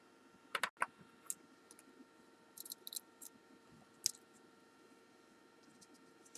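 Scattered light clicks and ticks of small metal parts: tweezers handling tiny lock springs while loading them into the spring chambers of a pin-tumbler lock body.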